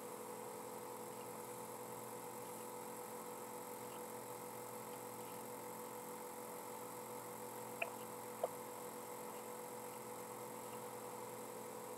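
A faint steady hum, with two short clicks close together about eight seconds in.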